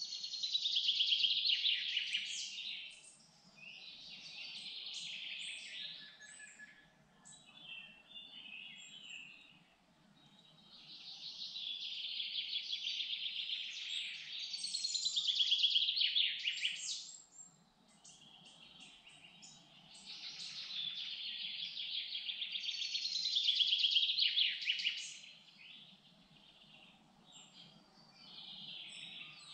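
Songbird singing: long, high, trilled song phrases three times, with quieter chirps between, over a faint steady background hum.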